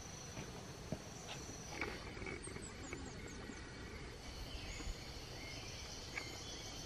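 Forest ambience: insects drone steadily at a high pitch, a quick run of short high chirps comes about two to three seconds in, and there are a few faint clicks.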